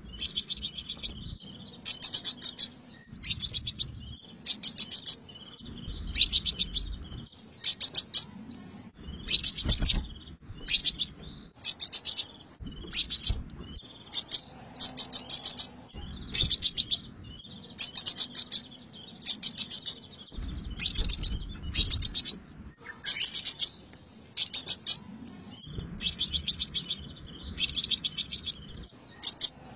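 Sunbird calling: rapid, high-pitched chittering trills in bursts of about a second, repeated again and again with short gaps. This is a lure call for trapping sunbirds.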